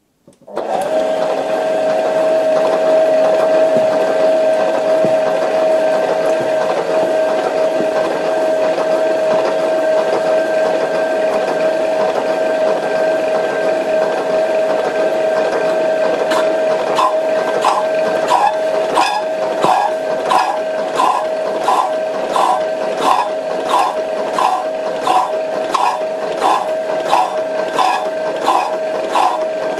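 Power hacksaw starting up and running under coolant, its drive making a steady loud hum with a clear tone. About halfway a regular clacking of about two strokes a second comes in with the back-and-forth of the blade cutting through steel tubing.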